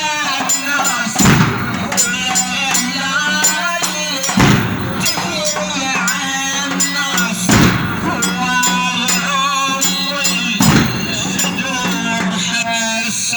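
Male radood chanting a Muharram latmiyya lament in a solo voice, with loud collective strikes in unison, typical of mourners' chest-beating (latm), landing four times about every three seconds.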